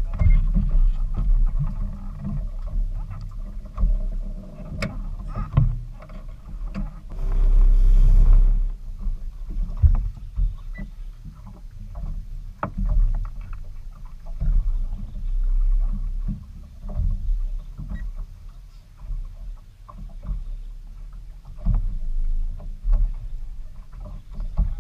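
Low, uneven rumble aboard a small fishing boat on the water, with scattered knocks and, about seven seconds in, a louder rushing swell of noise lasting a second or so.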